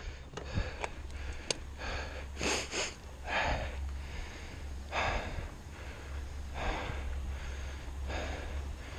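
Mountain biker breathing hard, a rushing breath about every second and a half, over the steady low rumble of the bike rolling on a gravel track, with a few sharp clicks and rattles from the bike.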